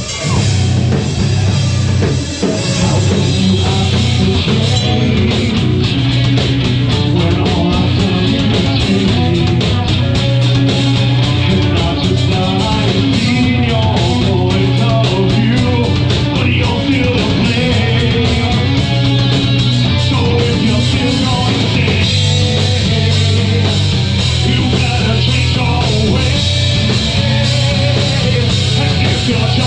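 Live rock band playing loudly in a small club, heard from the audience: electric guitars over a drum kit with steady, rapid drum hits.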